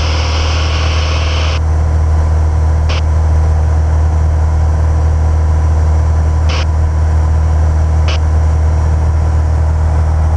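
Piper Cherokee's piston engine droning steadily in cruise, heard inside the cabin. A hiss over it cuts off about a second and a half in, and there are three faint brief ticks later.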